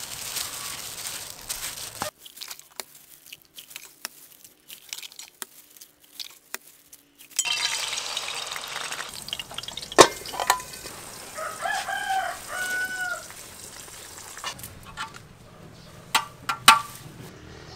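A run of cooking sounds: a wet shrimp mixture scraped into a steel bowl, then oil hissing as batter is ladled into a hot frying pan, with sharp metal utensil clinks. A rooster crows briefly about twelve seconds in.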